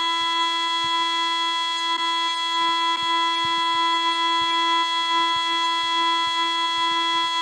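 A loud, harsh electronic alarm tone held at one fixed pitch, unbroken and unchanging: the anti-piracy screen's punishment noise.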